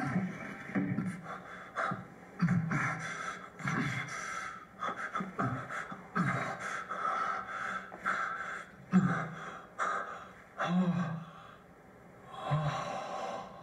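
A man gasping, panting and groaning in strain on a toilet, in short bursts about every second, with a few sharp louder bursts among them. The sound comes from a film soundtrack played through TV speakers.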